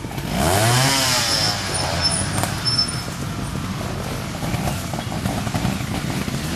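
Vintage trials motorcycle engine revving up and straight back down about half a second in, then running at uneven throttle as the bike climbs a slope.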